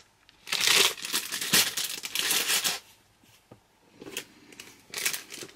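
Clear plastic packaging crinkling and rustling as it is handled, in a dense stretch of about two seconds, then a short lull and more crinkles near the end.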